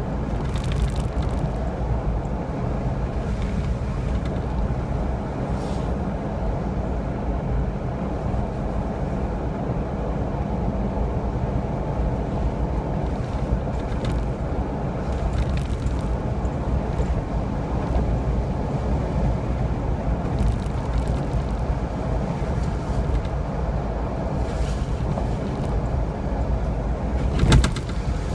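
Steady road and engine rumble heard inside a car driving on a wet road, with a few brief higher noises and a louder bump near the end.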